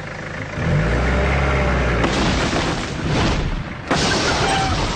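Toyota Hilux engine revving as the ute pulls away, then a wooden outhouse being pulled over with a loud splintering crash and a sharp thud just before four seconds in.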